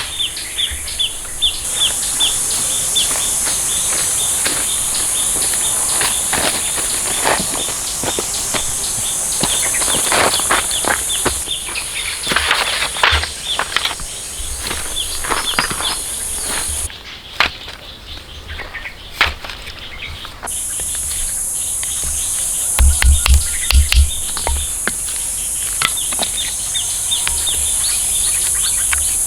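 Steady high-pitched buzz of a forest insect chorus, dropping out for a few seconds midway, with scattered knocks and taps of hand work over it and a few heavy low thuds about three-quarters of the way through.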